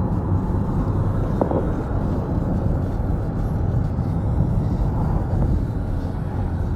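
A taxi on the move: a steady low rumble of engine and road noise. A brief higher tone sounds about a second and a half in.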